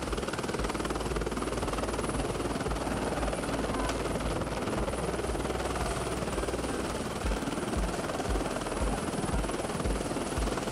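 Helicopter running on the ground close by with its main rotor turning, a steady engine and blade noise with a low pulsing chop.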